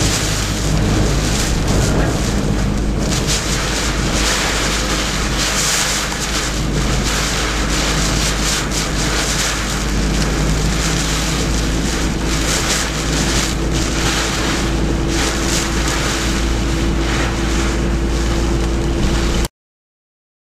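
Strong typhoon wind buffeting the microphone in gusts, with a low rumble and a faint steady hum underneath; it cuts off suddenly near the end.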